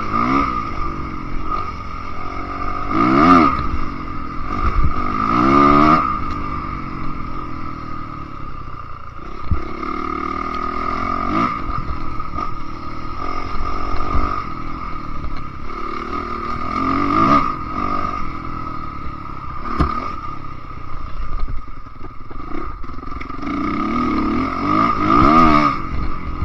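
Enduro dirt bike engine revving up and falling back again and again while riding a rough dirt trail, with frequent knocks and rattles from the bumps.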